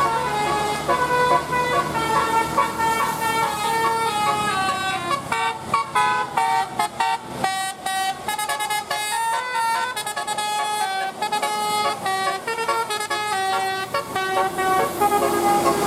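Telolet multi-tone bus horn playing a melody: held horn notes stepping up and down in pitch, several a second, quicker in the middle.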